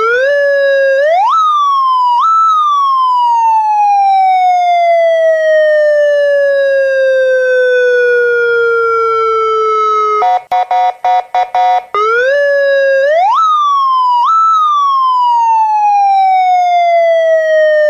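Electronic police-escort siren working through its tones: a quick run of short, choppy horn blasts, then a wail that climbs in two quick steps and slowly winds down over several seconds, like a mechanical siren coasting. The same sequence starts again about ten seconds in.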